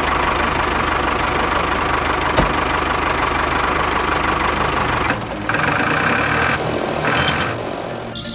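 A small motor running with a steady rattling buzz, changing a little after five seconds in, with a sharp click about two and a half seconds in.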